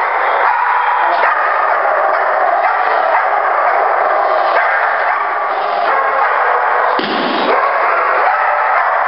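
A German shepherd barking repeatedly and aggressively at a helper during protection training, in a bare concrete hall.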